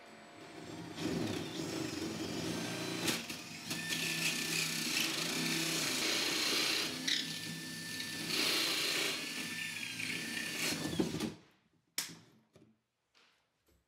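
Power drill turning a 1.5-inch hole saw down through the wooden bottom of an upper cabinet, the motor's pitch wavering under load as the teeth cut, for about ten seconds before it stops suddenly. A couple of short knocks follow near the end.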